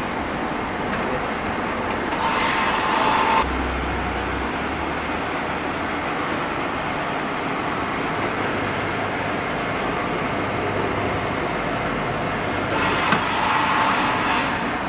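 Heat shrink film packing machine running with a steady whirring machine noise. Two louder whining bursts come, one about two seconds in lasting about a second, and one near the end lasting about two seconds.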